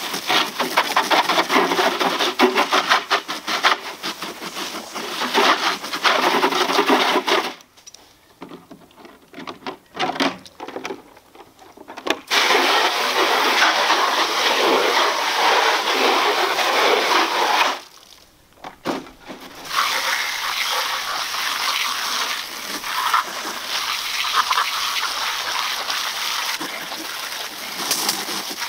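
Garden hose spray nozzle spraying water onto a dirty RC monster truck and the grass around it: a steady hissing spray with two short breaks.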